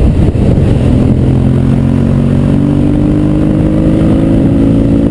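Motorcycle engine running under load while riding, its note rising steadily as the bike accelerates and dropping at the very end.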